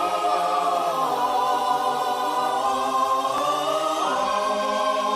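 A choir singing long held, slowly shifting notes in harmony, with the voices changing pitch about once a second.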